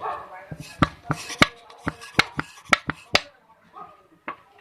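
A quick run of about nine sharp taps and clicks from small hard tools and parts knocking against a smartphone's circuit board and the work surface during repair, followed by quieter handling.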